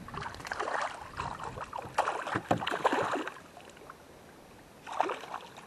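Small largemouth bass splashing and thrashing at the surface as it is reeled in to the side of a kayak, in irregular bursts over the first three seconds, with one more short splash about five seconds in.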